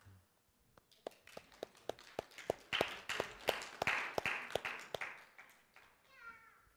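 Applause: sharp hand claps close by over the clapping of a room of people, starting about a second in, swelling, and fading out about five seconds in. A short voice near the end.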